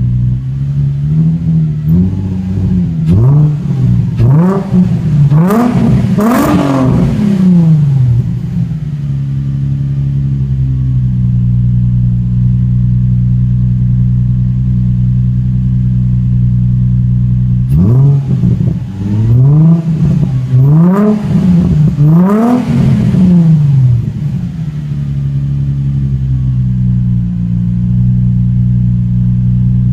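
2005 Nissan 350Z's 3.5-litre V6 running through an APEXi aftermarket exhaust, idling steadily. It is revved in two bursts of about five quick throttle blips each, climbing higher each time, a couple of seconds in and again a little past halfway, settling back to idle after each.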